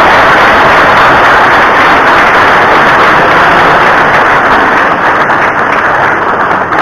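Crowd applauding: a dense, steady clapping that starts to die down about five seconds in.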